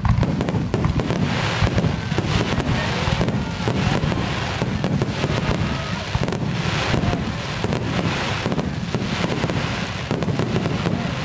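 A fireworks barrage: many aerial shells bursting in quick succession, their bangs overlapping into a continuous loud rumble. It is picked up by a camera's built-in microphone at a fixed recording level, which flattens the punch of the bangs.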